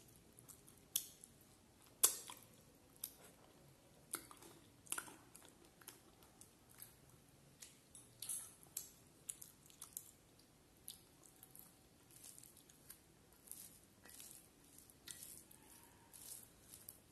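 Close-up chewing and mouth sounds: irregular wet smacks and sharp clicks, the loudest about two seconds in. Near the end, fingers squish rice and curry on the plate.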